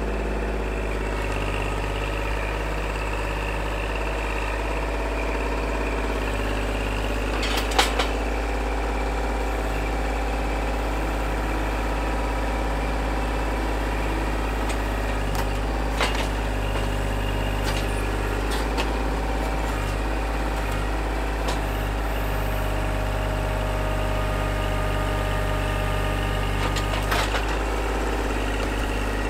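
Kubota L2501 compact tractor's three-cylinder diesel engine running steadily while the loader works the grapple, with a few sharp knocks, the loudest about eight seconds in.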